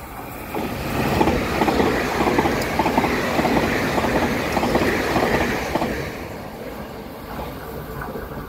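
Taroko Express TEMU1000 tilting electric train passing, its wheels clattering rhythmically over the rail joints. The sound builds in the first second and is loudest for several seconds, then fades away after about six seconds.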